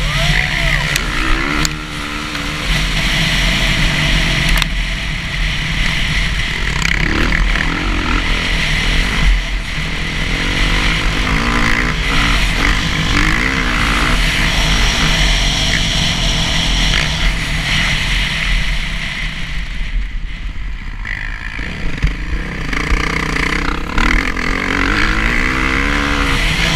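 Dirt bike engine revving up and down while riding, its pitch rising and falling again and again as the throttle is worked, under a heavy steady rush of noise. It eases off for a couple of seconds about twenty seconds in, then picks up again.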